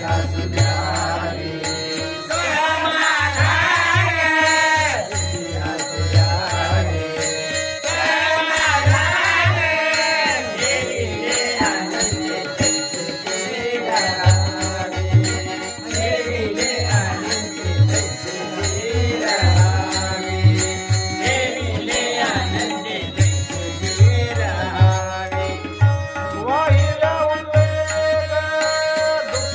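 Marathi devotional bhajan singing: a voice singing a melody over a steady drone, with a drum keeping a regular beat and small hand cymbals struck in time.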